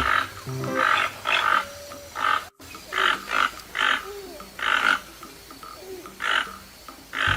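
Toucan calling: a string of short calls, a few each second in irregular runs, broken by a brief cut in the sound about two and a half seconds in.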